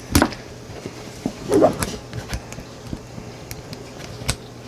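Irregular sharp clicks and taps of small pistol trigger parts being worked by hand while a Sig P320's trigger bar spring is fitted, with a louder cluster about one and a half seconds in.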